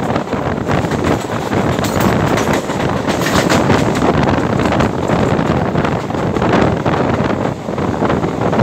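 Wind buffeting the phone's microphone over the running noise of a moving passenger train, recorded from its open doorway.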